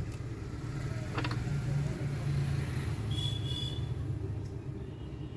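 Steady low background rumble, with a few light clicks about a second in and a brief high tone about three seconds in.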